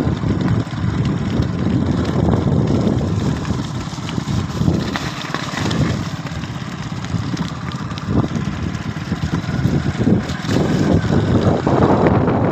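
Hailstorm: rain and hail falling, with strong wind rumbling and buffeting on the microphone.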